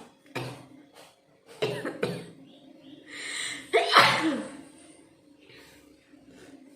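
A person coughs in short bursts, draws a hissing breath, then sneezes loudly about four seconds in.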